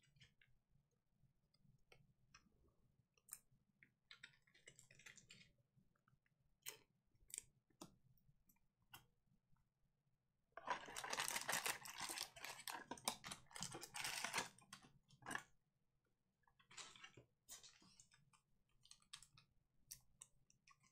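Handling trading card packs: a few light, scattered clicks and taps, then, about ten seconds in, a card pack's wrapper is torn open and crinkled for about five seconds. Scattered clicks follow.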